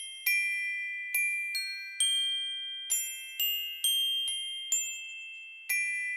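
Background music: a slow melody of high, ringing bell-like struck notes, about two a second, each note fading slowly.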